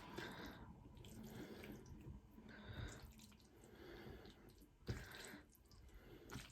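Faint wet chewing and mouth sounds of a person eating, with a single sharper click about five seconds in.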